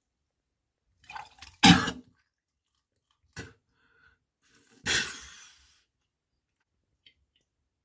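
A person gagging and retching from nausea, in three separate throat noises. The loudest comes just under two seconds in, a short one follows about a second and a half later, and a longer one that trails off comes about five seconds in.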